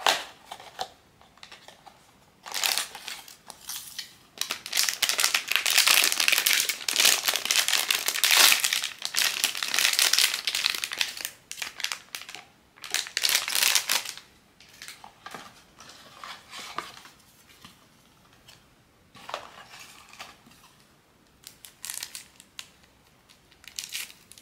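Packaging of a blind-box figure crinkling and tearing as it is handled and opened by hand. There is a sharp crackle at the start, then dense crinkling for about ten seconds, then scattered shorter rustles.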